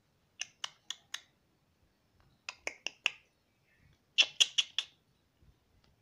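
Indian ringneck parakeet making quick sharp clicks in three short runs of four or five, the last run the loudest.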